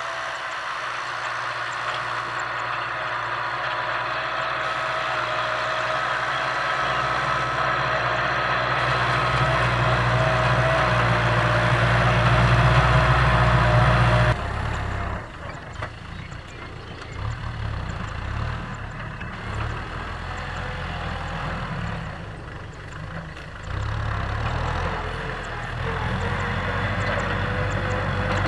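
Tractor engine working hard, with a steady whine that grows louder for about fourteen seconds. It then drops away suddenly, and the engine runs on lower and unevenly.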